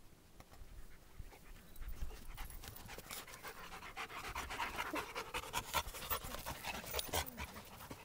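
Dog panting close to the microphone, quick breaths that grow louder from about two seconds in.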